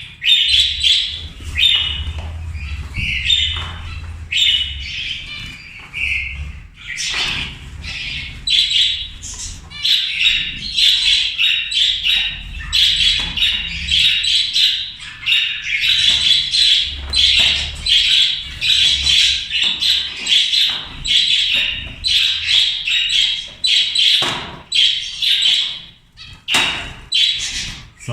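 A cage full of zebra finches calling, many short calls overlapping without a break.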